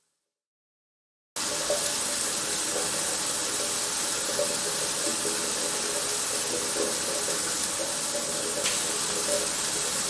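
Steady rush of water pouring down the rocks of a waterfall, cutting in suddenly after about a second of silence.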